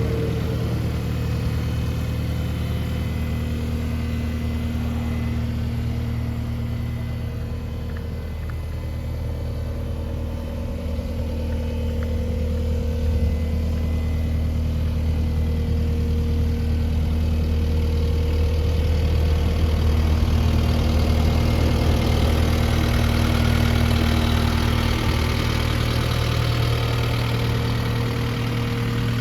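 Caterpillar 259D compact track loader's diesel engine running steadily at idle, a little louder from about halfway through.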